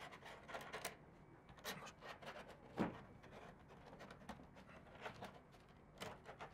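Faint handling noise: rustling and small clicks as cables and tools are handled, with one louder knock a little before the middle.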